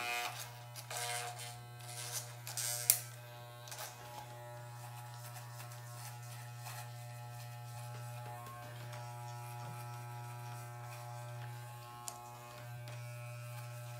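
Corded Wahl hair clippers running with a steady low electric buzz. Several clicks and knocks come in the first three seconds, the loudest near three seconds in, and the buzz briefly dips with a click about twelve seconds in.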